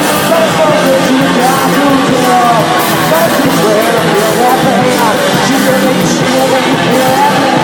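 Rock band playing live, loud and continuous, with a bending melodic line riding over the dense mix.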